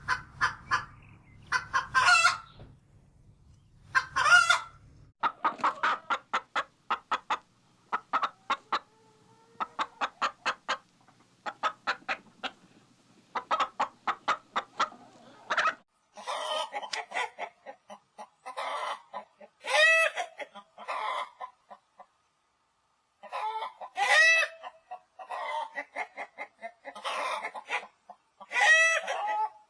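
Chickens clucking and calling: a few loud calls, then a long run of quick short clucks several a second, then louder drawn-out squawks about a second long, repeated every second or two.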